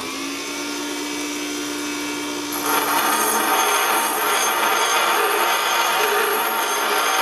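Bench grinder running with a steady hum; about two and a half seconds in, the forged steel of a hardy cut-off tool is pressed to the wheel and a louder grinding hiss takes over as its cutting edge is ground.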